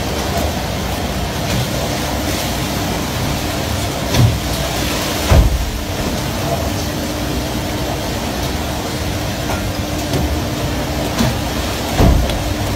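Steady running noise of a fishing boat underway, with the engine's drone and water rushing along the hull, and a steady low hum through it. Three heavy thumps stand out, the loudest about five seconds in.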